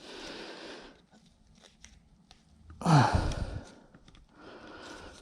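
A man sighing and exhaling in frustration, with a short falling groan about three seconds in. Faint small clicks fall between the breaths.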